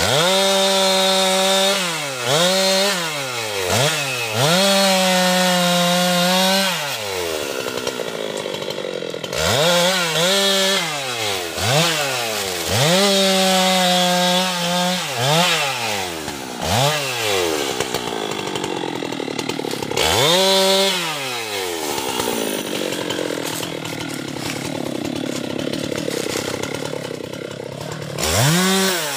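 Husqvarna two-stroke chainsaw cutting teak wood, its engine revving up into the cut and dropping back again and again. For several seconds after the middle it runs lower and rougher before revving up once more near the end.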